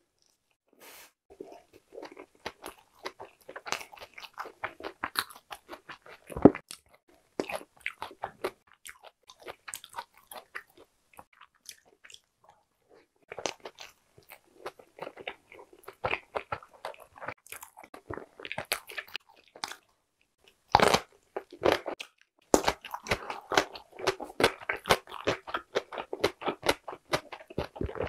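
A person chewing a mouthful of soft steamed bun, with irregular mouth clicks and smacks and a couple of short pauses.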